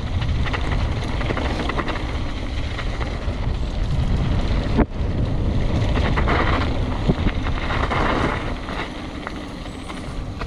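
Mountain bike descending fast: wind rushing over the camera microphone, tyres running over dirt and rock, and the bike's frame and drivetrain clattering over bumps, with a brief dip in the noise about five seconds in.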